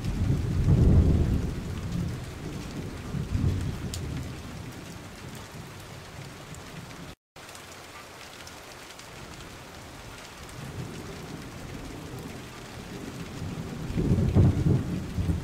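Steady rain with rumbles of thunder, a strong one about a second in and another near the end; the sound cuts out for a moment about halfway.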